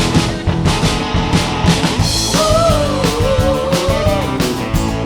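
Live rock band playing a driving groove on drum kit, bass, guitar and keys. About two seconds in, a held, wavering melody line comes in over the band.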